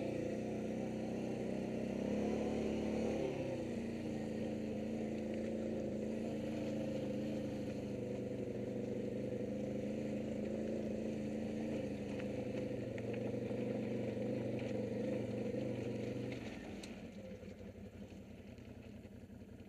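ATV engine running as the quad is ridden, its note rising briefly about two to three seconds in and then holding steady. About sixteen seconds in the throttle comes off and the engine note drops lower and quieter.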